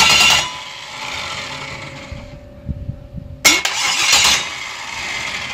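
Starter motor cranking a GM LS V8 that does not fire, because its ignition box is switched off. The starter is triggered by touching a wire to the battery. There are two bursts of cranking, the second beginning about three and a half seconds in.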